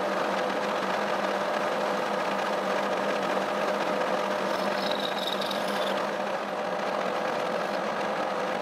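1K62 lathe running steadily while its cutter takes a roughing pass over weld build-up on a steel shaft, throwing chips. A brief high whine comes in about five seconds in.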